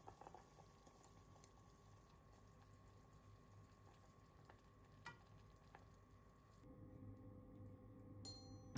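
Near silence: very faint simmering and stirring of soup in a small saucepan with a wooden spoon, with a few light knocks of the spoon, over a faint steady hum.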